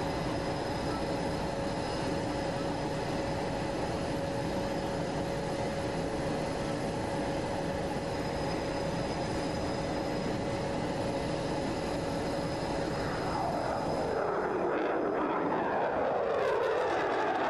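Fighter jet's engine roar heard at a distance, steady with a constant whine. From about 13 seconds in it grows louder and takes on sweeping, falling tones as the jet comes past.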